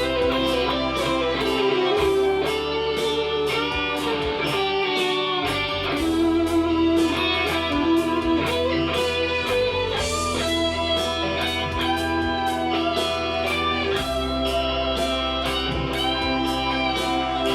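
Electric guitar playing an improvised lead over a backing jam track, with notes bent up and down and shaken with vibrato, over a steady beat.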